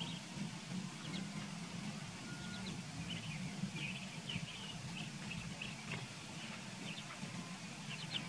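Ducklings peeping in short, high chirps, scattered and thickening near the end, over a steady low hum.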